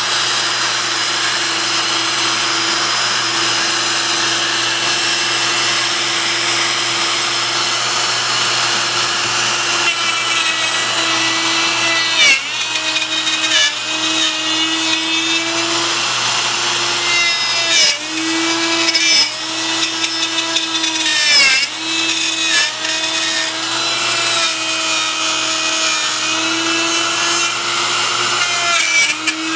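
Bosch plunge router running at speed. From about ten seconds in it cuts a slot through a template, and its pitch sags briefly again and again as the bit takes the load.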